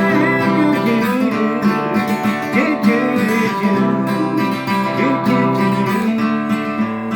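Acoustic guitar strummed in a steady chord pattern during an instrumental break in a folk-pop song, with a wavering melody line over it.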